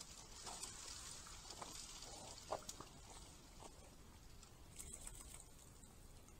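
Faint rustling and crackling of dry leaves and soil as wild boars root in the leaf litter, with scattered soft clicks, one sharper about two and a half seconds in, over a steady faint hiss.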